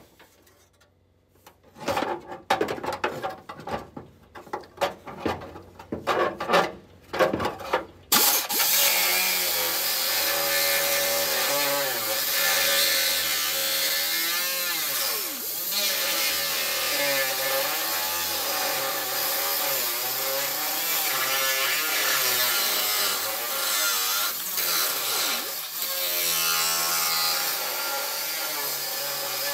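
Irregular clanks and rattles of metal being handled inside a car door for the first eight seconds or so. Then a cut-off wheel grinder starts and runs continuously, its pitch wavering as it cuts through the steel door crash bar inside a GM G-body door.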